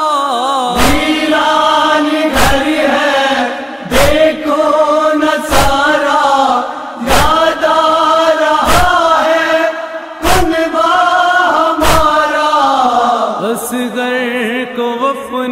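Wordless male chanting of a noha elegy, long drawn-out mournful notes, over a heavy beat struck about every one and a half seconds in the manner of matam chest-beating. The beat stops about 13 seconds in and the chanting carries on alone.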